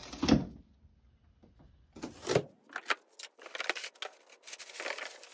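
Cardboard shipping box being opened by hand: one sharp tearing or knocking sound just after the start, then, after a short pause, a run of rustling, scraping and knocking as the flaps are pulled open and hands reach inside.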